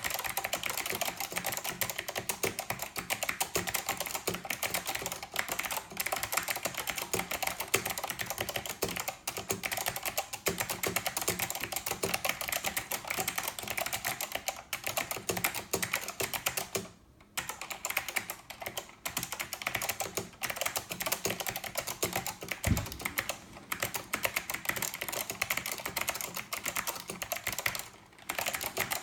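Steady fast typing on a Northgate OmniKey 102 mechanical keyboard with clicky Alps SKCM Blue switches, a rapid stream of key clicks. It pauses briefly twice, about 17 and 28 seconds in.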